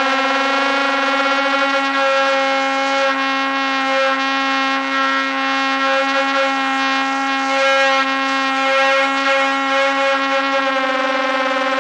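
DJI Air 2S drone's propellers and motors hovering, a steady high-pitched hum that wavers slightly in the middle.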